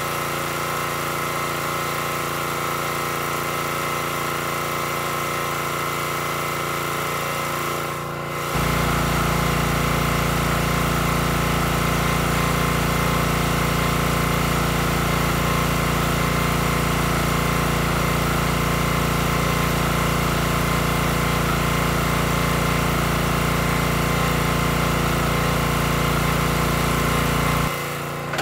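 Small gas engine of a Black Diamond hydraulic log splitter running steadily. About a third of the way in its low hum turns abruptly heavier and stays so until just before the end.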